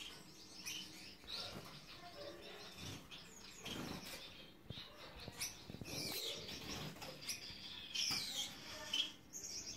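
Gouldian finches in a cage calling with many short, high chirps and twitters, mixed with brief rustling noises.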